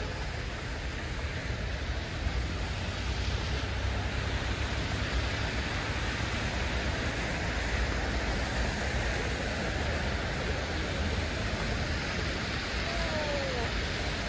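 Steady street traffic noise on a snowy, wet road: an even hiss of tyres over a low rumble.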